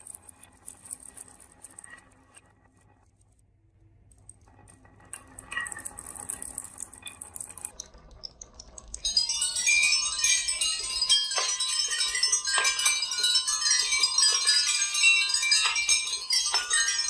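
Glass marbles rolling and clinking down a marble run: sparse faint clicks at first, a short rattling run in the middle, then from about nine seconds in a loud, dense, continuous clatter of many marbles with ringing, chime-like tones.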